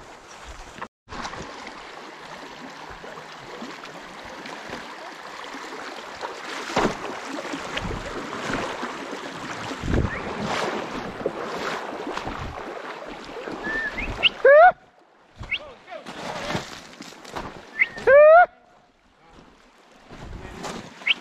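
A steady noisy hiss, then from about two-thirds of the way in a beagle baying close by: three loud howls, each rising in pitch, a few seconds apart.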